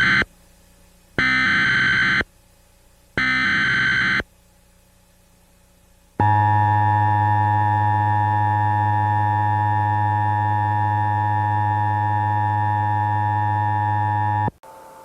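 Emergency Alert System data header: the tail of one digital data burst, then two more bursts of about a second each, a second apart. After a short gap comes the steady EAS attention tone, a loud electronic buzz held for about eight seconds that cuts off abruptly, signalling that the spoken alert message follows.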